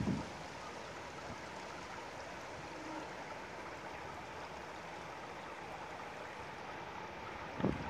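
Steady rush of running water from the penguin pool, with a brief low thump near the end.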